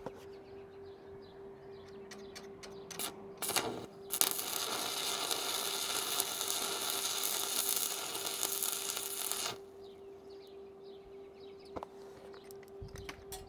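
A few clicks, then a welding arc crackling steadily for about five seconds, starting and stopping abruptly, over a steady hum.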